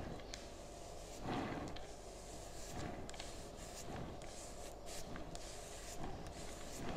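Faint rubbing of a cloth wiping a foil-covered cake board, with a few light clicks of handling.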